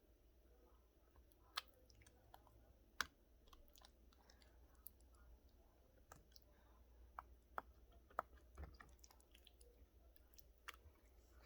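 Silicone pop-it fidget bubbles being pressed through slime: quiet, irregular small pops and sticky clicks, with a few sharper pops standing out.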